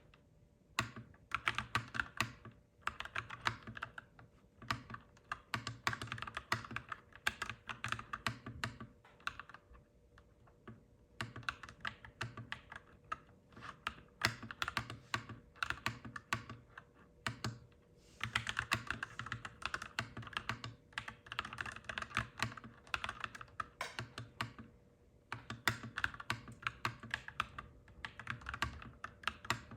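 Typing on a clacky mechanical keyboard: rapid key clicks in runs of several seconds, broken by short pauses.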